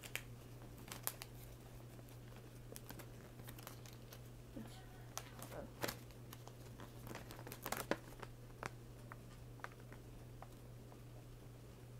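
Toy track packaging being opened by hand: faint crinkling and tearing with scattered small clicks and rustles, over a steady low hum.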